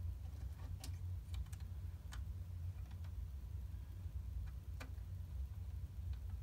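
About five light, sharp clicks at irregular moments, the clearest about a second in and near the five-second mark. They come from hands handling the plastic case of an Xbox 360 console, over a steady low hum.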